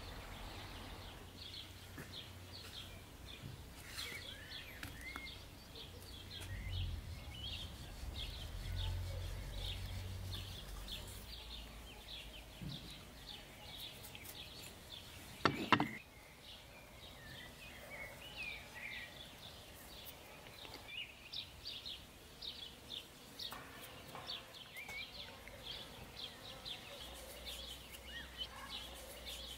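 Many small birds chirping over and over, with a low rumble in the first half. A single sharp knock about halfway through is the loudest sound.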